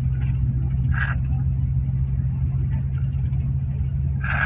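Steady low drone of a road vehicle's engine and tyres, heard from inside while it drives. Two short higher-pitched sounds cut in, about a second in and near the end.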